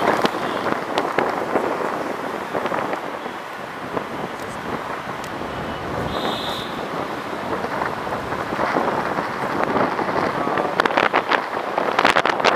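Wind rushing and buffeting over the microphone of a camera held outside a moving car, over road and traffic noise. A brief high-pitched tone comes about six seconds in, and the buffeting grows heavier and crackly near the end.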